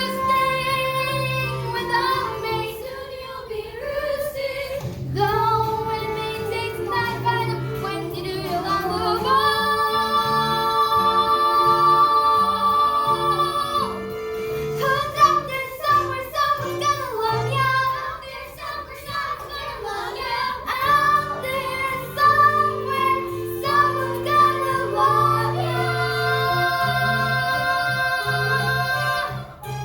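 A girl singing a musical-theatre song over an accompaniment, holding one long note about ten seconds in.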